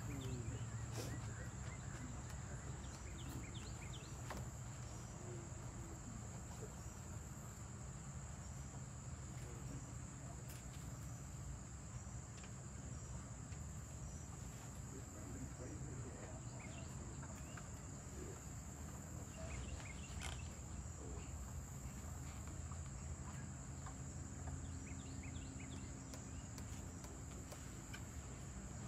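Insects singing in one steady high-pitched drone over a low outdoor rumble, with a few faint clicks and rustles.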